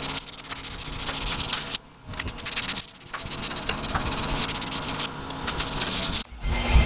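Hand-sanding the bevel of a knife blade made from an old steel file, using abrasive paper backed by a stick: quick scratchy back-and-forth strokes, with two short pauses about two and three seconds in.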